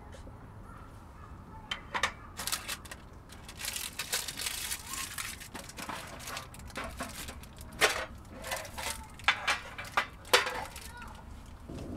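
Gear being handled on a low camp table: irregular rustling and crinkling with sharp clicks and metal clinks as a stainless tray is moved, loudest in a few knocks near the end.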